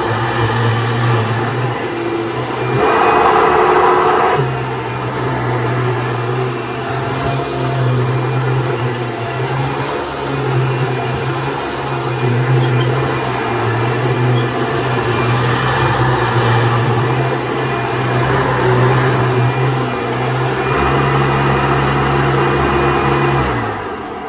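Hoover Breathe Easy bagged upright vacuum cleaner running with a loud, steady motor drone. It gets louder for a second or two about three seconds in, and is switched off and winds down near the end.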